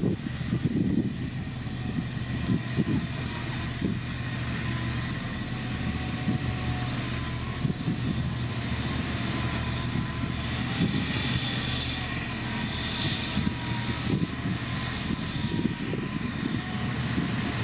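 Diesel engine of heavy road-building machinery, a motor grader or road roller, running steadily with a low hum and uneven rumbling.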